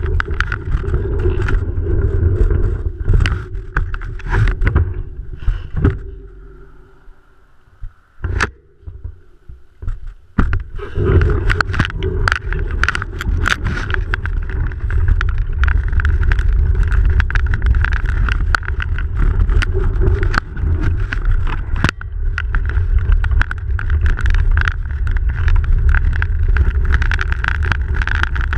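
Bicycle riding on a snow-covered road, heard from a camera mounted on the bike: a steady low rumble of wind and tyres with frequent sharp rattles and clicks. The noise dies away about six seconds in, with only a few clicks, then picks up again about four seconds later and runs on steadily.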